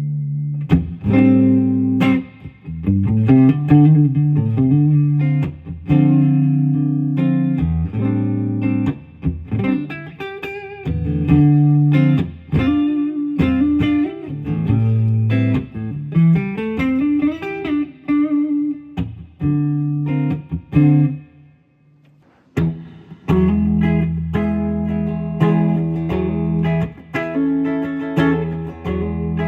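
1957 Gretsch Duo Jet electric guitar with DeArmond Dynasonic pickups being played: picked single-note lines and chord phrases. After a short pause about two-thirds of the way through, it moves to fuller, held chords.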